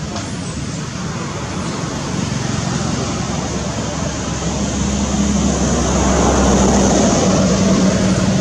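Steady motor vehicle engine hum with road noise, growing louder about halfway through.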